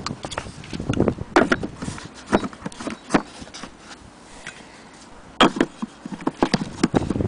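Irregular knocks, taps and clicks from an antique fitted rosewood vanity box and its fittings being handled and turned over, the sharpest about a second and a half in and again just past five seconds.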